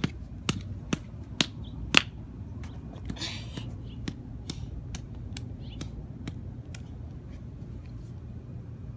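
Rubber mallet striking crab apples on asphalt: repeated sharp hits about twice a second, the strongest in the first two seconds, then lighter taps.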